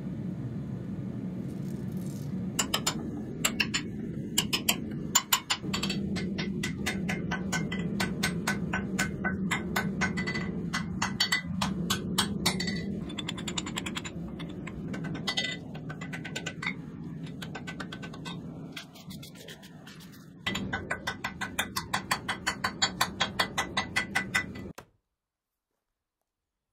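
Hand hammer striking hot steel on an anvil, forging an axe head. The blows come in runs of quick strikes, each with a metallic ring, over a steady low hum, and the sound cuts off suddenly near the end.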